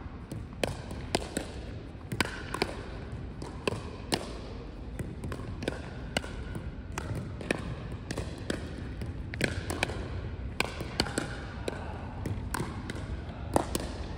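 A pickleball rally: hard paddles hitting a plastic pickleball and the ball bouncing on a hardwood gym floor, making irregular sharp pops about once or twice a second that echo in the large hall.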